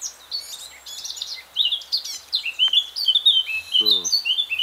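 Songbirds singing close by: a dense, continuous run of quick high chirps and warbling phrases, growing louder after the first second and a half.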